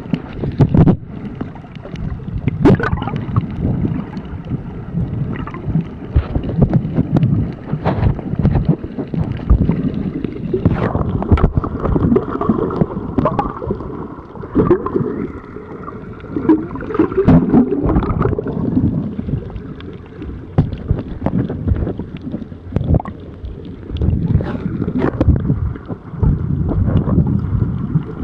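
Muffled underwater sound of churning water and bubbles around a camera held below the surface while snorkelling, with irregular knocks and splashes from swimming strokes and fin kicks.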